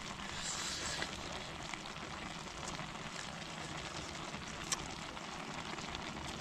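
Camp stove burning steadily under a pot of simmering water, with a few light clicks.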